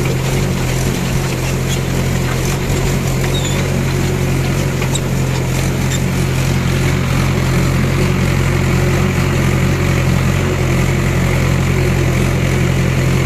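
Small tractor's diesel engine running steadily at a constant speed, heard close up from the driver's seat.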